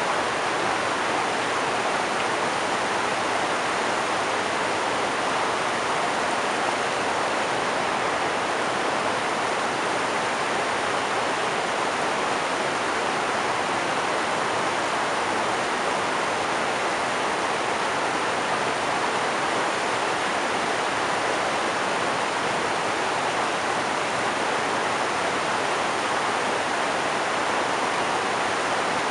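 River rapids: water rushing steadily over and between rocks, an even, unbroken rush.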